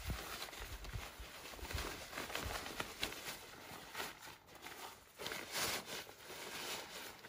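Rustling, crinkling handling noise of a stiff fabric awning bag being folded and rolled up lengthways by hand, in uneven scuffs and crinkles.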